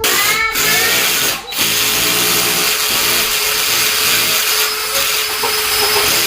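Power drill running under load, boring through a double layer of drywall that makes it hard going. It whines up to speed at the start, stops briefly twice in the first second and a half, then runs steadily.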